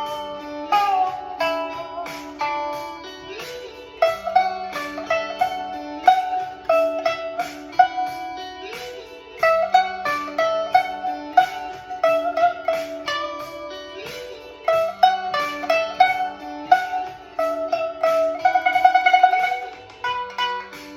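Pipa playing an improvised melody of plucked notes, some bent upward in pitch, with a fast tremolo on one note near the end.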